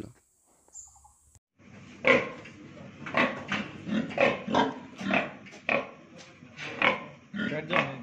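Pig grunting repeatedly, short grunts two or three a second, starting after a near-silent second and a half. The grunts come from a sow in a pen being artificially inseminated with a catheter.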